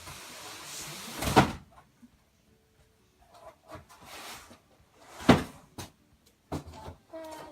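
Packaging and boxes being handled and set down: a rustle ending in a sharp knock about a second in, a second loud knock past the middle, then a few lighter clicks.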